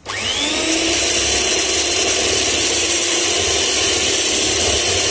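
White electric hand mixer switched on, its motor whining up to speed in about half a second, then running steadily as its beaters whip cream in a glass bowl.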